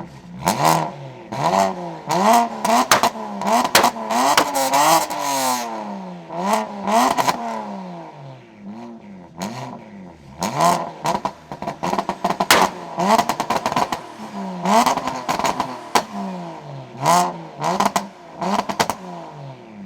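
BMW engine revved hard over and over, its pitch climbing and dropping in quick cycles, with sharp exhaust pops and crackles throughout.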